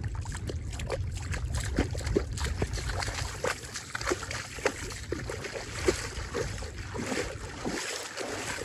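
Shallow lake water sloshing and splashing in many small irregular splashes and gurgles, over a steady rumble of wind on the microphone.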